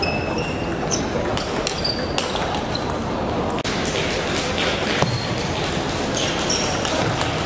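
Table tennis rally: the ball clicking sharply off the paddles and table in quick succession, closely spaced for the first couple of seconds and sparser after, over a steady background of hall noise.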